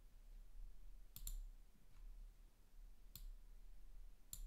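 Faint clicks of a computer mouse: three clicks spaced about a second or two apart, the first a quick double.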